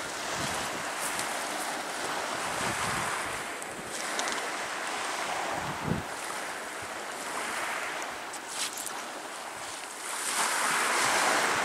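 Small waves washing onto a shingle beach, swelling every few seconds, with wind buffeting the microphone.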